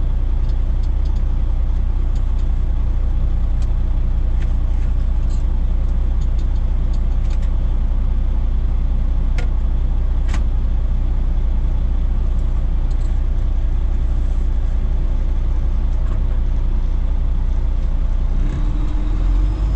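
Heavy-haul semi truck driving, a steady low rumble of engine and road noise with a couple of sharp clicks near the middle.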